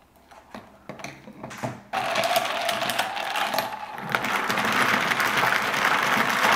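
Ice cubes rattling and clinking against glass mason jars as iced coffee is stirred with straws, a steady rattle starting about two seconds in, after a few soft clinks.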